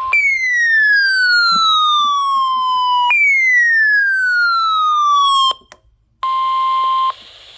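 Weather radio receiver's electronic siren alarm sounding two falling sweeps, each sliding from high to lower pitch over about two and a half seconds, triggered by the NOAA Weather Radio 1050 Hz warning alarm tone during a weekly test. After a short break the steady 1050 Hz alarm tone of the broadcast comes back for about a second.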